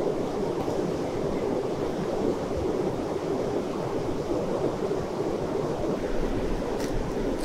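Steady rushing of a mountain river, an even noise that stays level throughout, with a faint click near the end.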